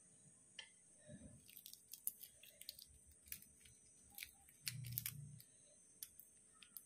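Faint, irregular crackling clicks of a garlic clove's papery skin being peeled by fingers, with a brief low hum about five seconds in.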